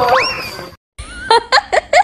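A woman giggling in short, high, rising bursts, about four a second, after a cut to silence about a second in. Before the cut, a short rising squeal.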